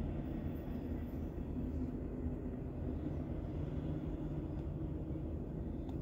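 Thomas Built transit-style school bus driving past, its engine a steady low rumble that eases off slightly as the bus moves away.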